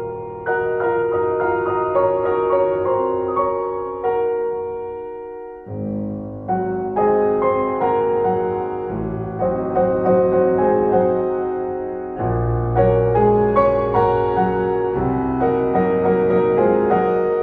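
Background solo piano music, calm and chordal, with deeper bass notes entering about two-thirds of the way through.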